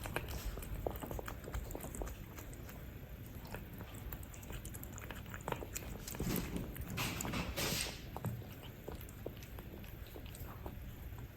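Cats eating from bowls: close chewing and biting with many small wet clicks and crunches. A denser rustling noise comes about six to eight seconds in.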